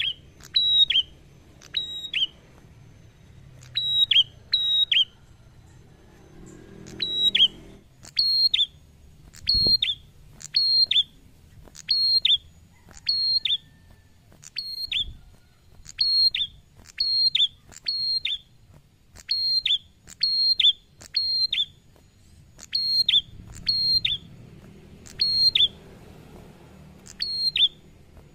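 Caged tailorbird calling loudly and insistently: sharp, high single notes that drop slightly in pitch, repeated over and over, mostly in quick pairs and threes with short gaps between.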